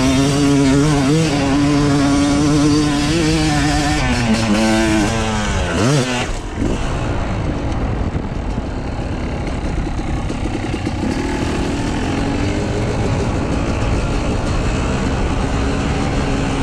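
Dirt bike engine running hard at high revs, its pitch wavering with the throttle. About six seconds in the revs slide down and drop away, leaving a steady rushing noise with a fainter engine hum.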